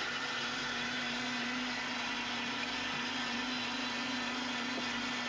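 Vitamix countertop blender running at a steady speed: an even whir with a constant low hum under it.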